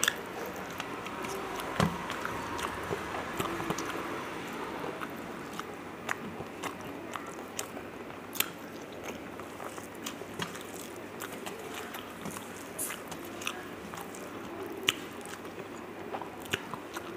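A person chewing a mouthful of rice and fish eaten by hand, with close mouth and chewing sounds and scattered small sharp clicks, some from fingers working rice on a steel plate.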